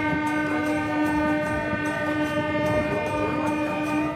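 Train horn sounding one long, steady blast that cuts off near the end.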